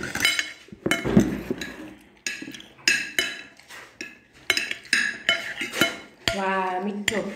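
Metal spoons and forks clinking and scraping against plates and a glass serving bowl as several people eat, in a quick irregular run of short, sharp clinks.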